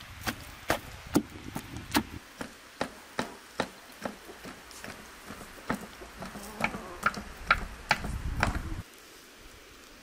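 A knife stabbed again and again into a whole raw lamb on a metal tray, making sharp knocks about two to three a second, some with a brief metallic ring. The knocking stops about a second before the end.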